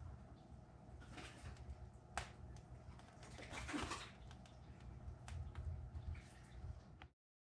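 Quiet room tone with a low hum and scattered faint clicks and taps, one sharper click about two seconds in. The sound cuts off abruptly near the end.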